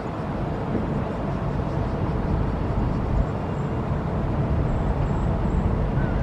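Steady low engine rumble, slowly growing louder.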